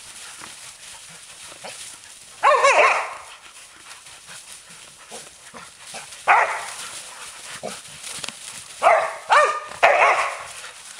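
Entlebucher Mountain Dogs barking in play while wrestling: one bark a couple of seconds in, another around the middle, then three quick barks near the end. Dry leaves rustle and crackle between the barks as the dogs tumble in them.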